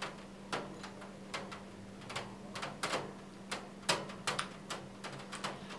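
Raindrops dripping, a string of irregular light ticks, two or three a second, over a steady low hum.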